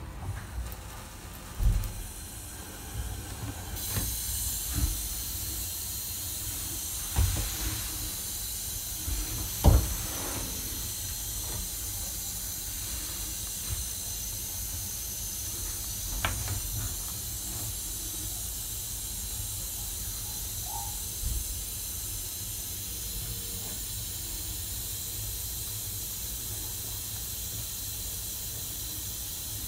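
A steady high hiss comes on about four seconds in and holds without change. Under it are a few dull bumps in the first ten seconds, the loudest near ten seconds in.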